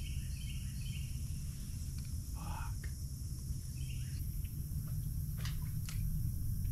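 Steady outdoor ambience: a low rumble with a high, even insect-like hiss above it. A few short bird chirps come near the start and one brief call a couple of seconds in, then two sharp clicks near the end.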